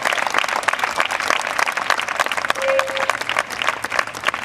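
Crowd applauding, with dense, steady clapping.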